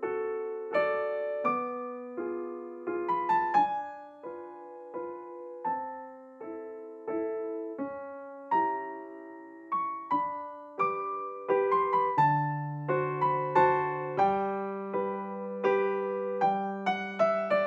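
Background music: a slow, gentle piano melody of single struck notes that ring and fade, with a low bass line joining about twelve seconds in.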